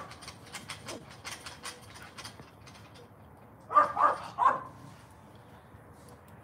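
A miniature schnauzer barks three quick, sharp barks about four seconds in, after a run of light clicking in the first couple of seconds.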